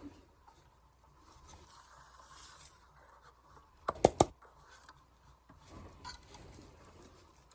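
Scraping and rubbing as packed clay is dug out of a firework shell, with a second-long rasp about two seconds in and two sharp clicks about four seconds in.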